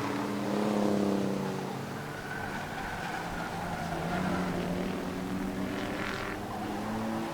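Race pickup trucks running at speed around a short oval track, their engines swelling louder about a second in and again around four seconds in as trucks go by.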